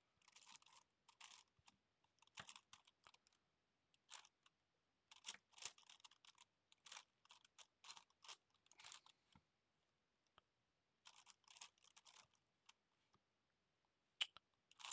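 Faint plastic clicking and clacking of a Gigaminx's layers being turned by hand, in quick irregular bursts, with a pause of about a second and a half past the middle.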